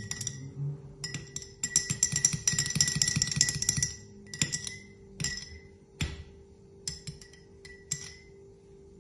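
A metal teaspoon stirring milk, melted butter and egg in a small glass tumbler, clinking rapidly against the glass with a ringing tone. After a few seconds it gives way to single taps under a second apart that grow fainter.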